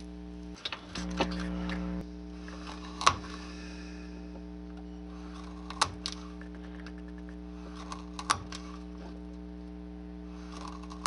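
Hobby chopper, a lever-arm blade cutting tool, snapping down through a 1/8-inch wooden dowel to cut it into short lengths. Three sharp clicks come roughly two and a half seconds apart, the loudest about three seconds in, with fainter ticks between, over a steady electrical hum.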